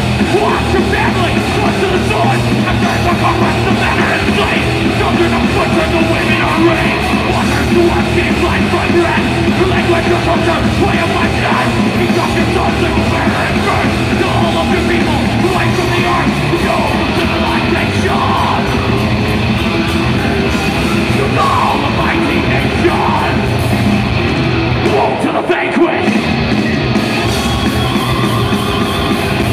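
Thrash metal band playing live through a loud PA, heard from inside the crowd: fast distorted guitars, bass and drums with no singing. The low end briefly drops out about 25 seconds in.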